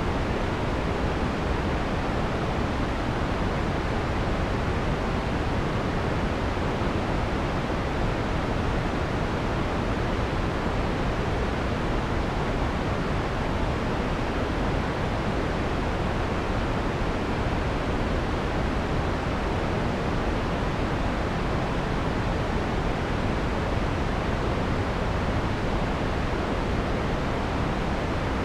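Steady, unchanging synthesized white noise from a noise generator, with the harsh high end filtered out so it sounds soft and full.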